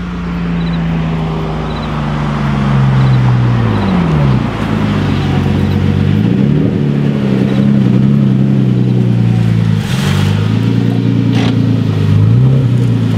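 Porsche 911's flat-six engine running loud at high revs as the car is driven hard past. Its note drops and climbs again several times as it changes gear.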